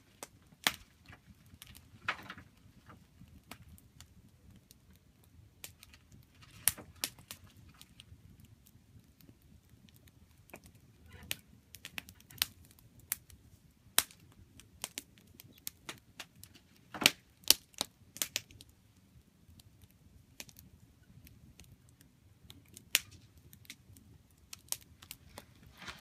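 Wood campfire crackling, with irregular sharp pops and snaps, the loudest cluster about two thirds of the way through, over a faint low rumble.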